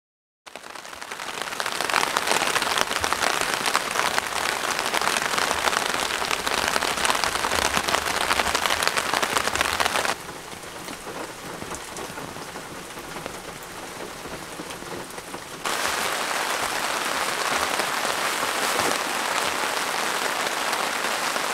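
Steady rain falling on a Minimal Works Shelter G tent. It fades in about half a second in, turns quieter for about five seconds in the middle, then comes back louder.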